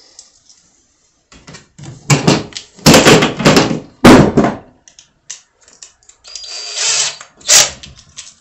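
Cordless drill/driver running in a series of short bursts, driving screws to fasten a toggle switch into a metal electrical box, with one longer run near the end.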